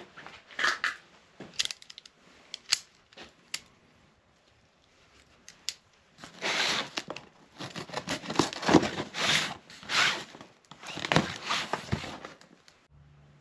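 A pocket knife slitting the packing tape on a cardboard box, then the box flaps being pulled open, with scraping, tearing and crinkling. A few sharp clicks come first, and the sound is thickest from about six seconds in.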